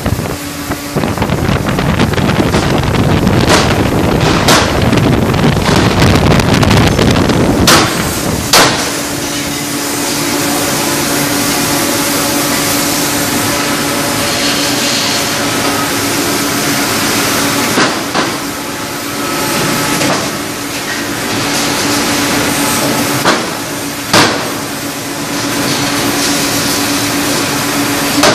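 A 1-ton closed-die forging hammer striking hot steel in its dies with sharp, ringing blows at irregular intervals, the heaviest about eight seconds in. Between blows there is a steady machine hum with a low tone, and a loud rushing noise fills the first few seconds.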